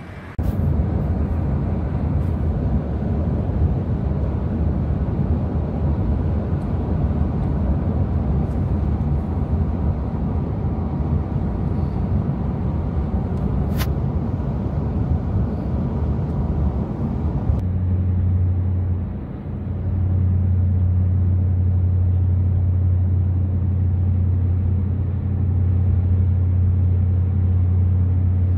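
Steady low road and engine rumble heard from inside a moving car's cabin at highway speed, dipping briefly about two-thirds of the way through.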